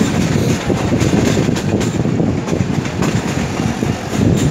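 Awam Express passenger train coach running at speed, heard from an open window: a steady rumble of wheels on the rails with the clickety-clack and rattle of the coach.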